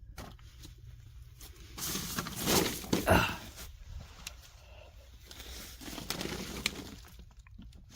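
Rustling and crinkling handling noise in irregular bursts with a few sharp clicks, loudest about two to three and a half seconds in.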